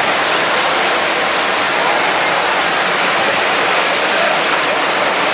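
Floodwater rushing in a loud, steady stream.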